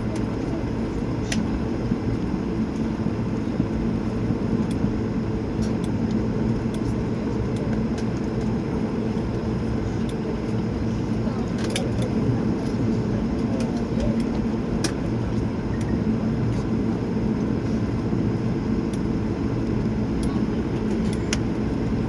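Cabin noise of an Airbus A220 taxiing, with its Pratt & Whitney PW1500G geared turbofans at taxi thrust and the airframe rolling over the taxiway. It is a steady, low rumble with a few light clicks and rattles.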